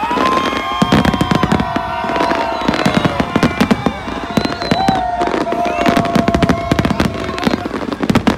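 Fireworks going off in a dense, continuous barrage of bangs and crackles. Long held tones sound over it until near the end.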